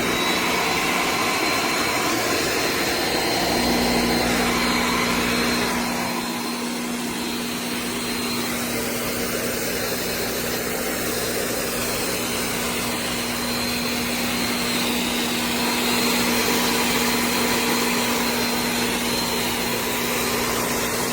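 An electric snow machine's blower motor running steadily, with a constant high whine; a lower steady hum joins a few seconds in.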